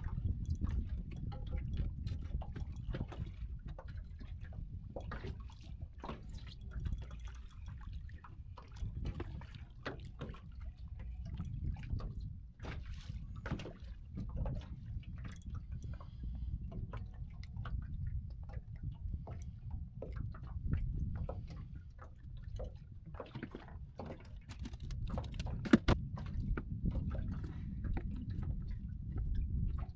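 Water lapping and sloshing against a small boat's hull over a steady low rumble, with many scattered small clicks and taps and one sharp knock near the end.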